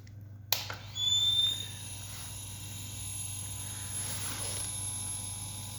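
Compressor switched on with a click, then running steadily as it pumps air into a sealed aluminium refrigerator evaporator to pressure-test it to bursting.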